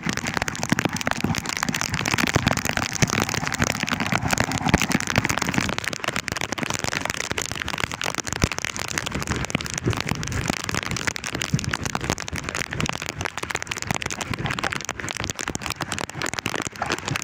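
Heavy rain pelting down, a dense, steady crackle of drops striking close by.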